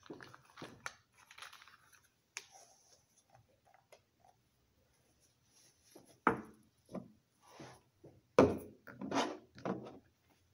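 Handling noises on a lab bench: scattered rustling and a few sharp knocks as safety goggles are put on and a plastic bottle is picked up and set down. The loudest knocks come about six seconds in and again about eight and a half seconds in.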